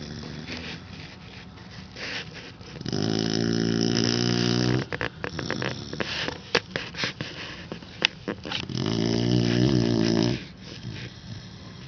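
A sleeping pet snoring: two long, pitched snores about six seconds apart, with a run of short clicks between them.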